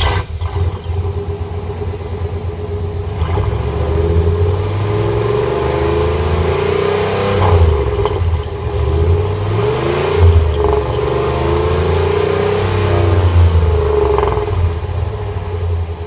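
Truck engine running at the exhaust tailpipe and revved up several times, with a clamp-in exhaust whistle in the tip. Over the low exhaust rumble a wavering whistle tone rises and falls with the revs.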